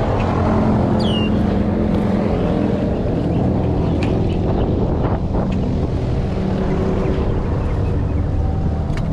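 Strong storm wind buffeting the microphone, a loud steady rumble, as a hurricane's outer band comes in. A brief high falling whistle sounds about a second in.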